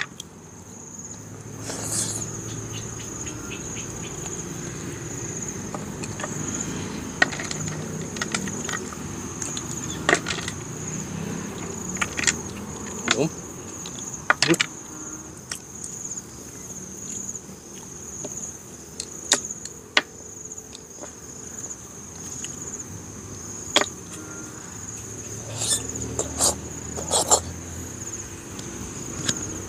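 Close eating sounds of a man eating freshwater snails and rice by hand: sharp smacks and clicks every few seconds, the loudest in a cluster near the end. Behind them runs a steady high-pitched insect trill.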